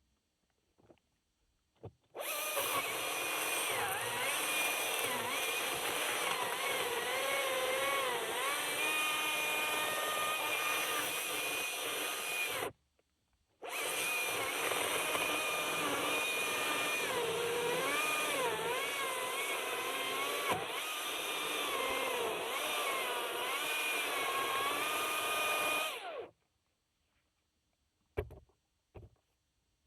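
Husqvarna 540i XP battery chainsaw running in two long spells of about ten and twelve seconds, with a short stop between, its motor whine wavering in pitch throughout. A few faint clicks near the end.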